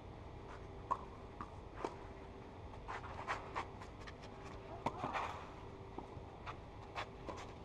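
Tennis rally on a clay court: a series of sharp racket-on-ball hits at irregular intervals, with lighter footsteps and a brief scuff of shoes on the clay about five seconds in.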